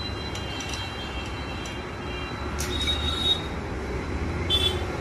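Steady rumble of road traffic, with a few short high squeals and sharp clicks standing out about halfway through and again near the end.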